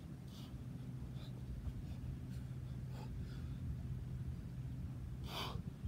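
A man breathing hard while exercising, with faint footfalls as he sprints in and drops into a burpee, and one loud, sharp exhale near the end.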